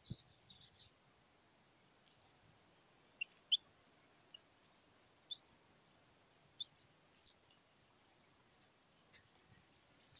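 A young chick, sick with coccidiosis, peeping: short, high, falling peeps every half second or so, mostly faint, with a louder one about three and a half seconds in and the loudest about seven seconds in.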